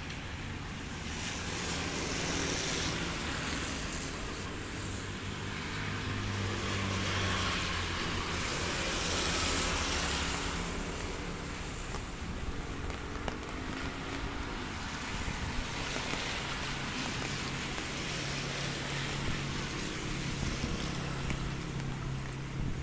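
Outdoor ambience of a steady low engine hum running throughout, under a hiss that swells and fades over the first half.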